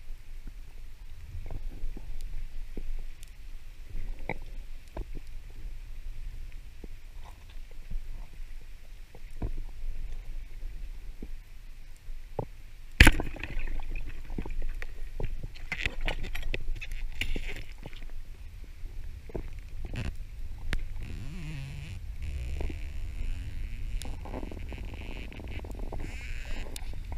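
Underwater on a reef: a steady low rumble with scattered faint clicks. About halfway through, a speargun fires with a single sharp, loud crack. Irregular knocks and rattles follow.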